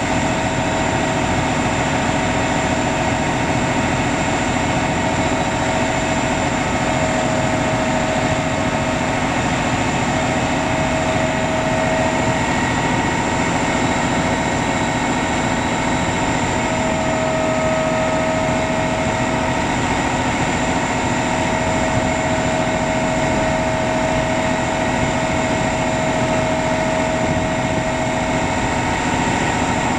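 1975 Chevrolet Brigadier service truck's engine running steadily at idle while its hydraulic crane is worked, with a steady whine over the engine.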